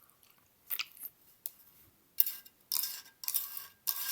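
Scratchy rustling handling noise in short bursts: one brief rustle about a second in, then three more in the second half, the last two about half a second each.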